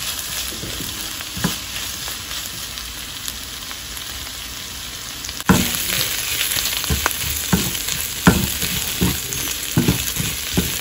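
Chopped chayote, onion and tomato sizzling in oil in a stainless steel kadai, sautéed dry without added water. A steady sizzle runs throughout. About halfway through it gets louder, and a wooden spatula's stirring strokes scrape and tap against the pan about once or twice a second.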